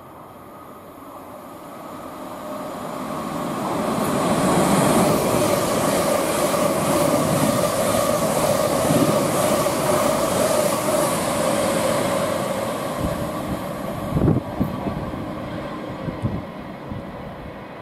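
Thameslink Class 700 Desiro City electric train passing through the station at speed without stopping. It rises to a loud rush of wheels on rails with a steady tone running through it, then fades as the train goes away, with a few sharp thumps near the end.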